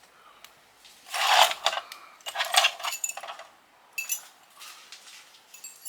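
Small pieces of scrap metal from a dismantled fuse box clinking and rattling together as they are handled, in several short clusters, loudest about a second in.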